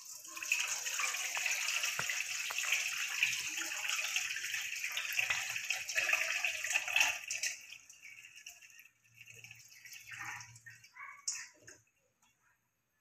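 Soaking water pouring off soaked rice out of a tilted steel bowl, a steady splashing pour for about seven seconds that then thins to a few trickles and drips.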